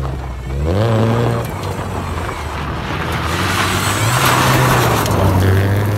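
A car engine running and revving, with a rushing surge of noise in the second half, over a backing track with a stepping bass line.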